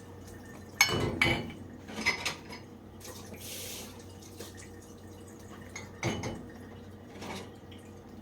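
Dishes, most likely cups, being set into a dishwasher's upper rack: sharp clinks and clatters of crockery on the rack in a few clusters, the loudest about a second in, then around two seconds and again near six and seven seconds.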